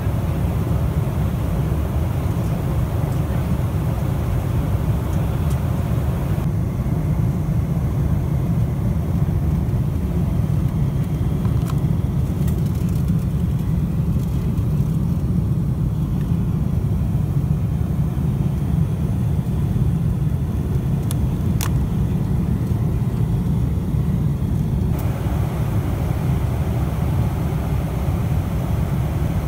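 Steady low rumble of in-flight cabin noise aboard a Boeing 747-400: engine and airflow noise heard from inside the economy cabin. A couple of faint clicks sound over it.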